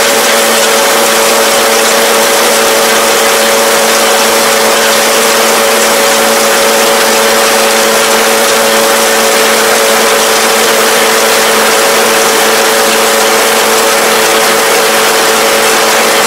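Kubota tractor running steadily with its baler's machinery turning, heard up close: a loud, even mechanical din with a steady hum and no change in speed.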